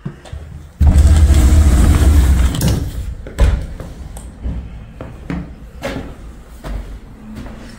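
A door being pushed open, a loud scraping rush lasting about two seconds, followed by a series of light knocks and clicks.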